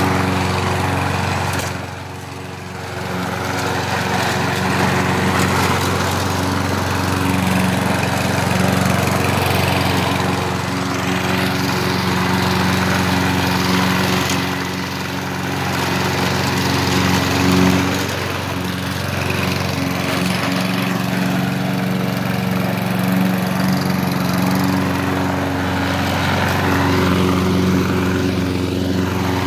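2015 Lawn-Boy walk-behind mower's small single-cylinder engine running steadily while cutting grass. The level drops briefly about two seconds in.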